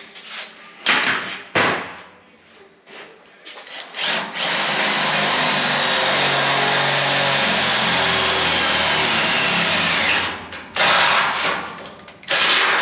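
Power drill boring through thick steel, running steadily for about six seconds from about four seconds in, then two short bursts near the end. A few knocks come before it.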